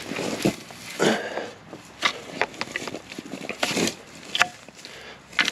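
Boots crunching and swishing through dry grass and brush in uneven, irregular steps.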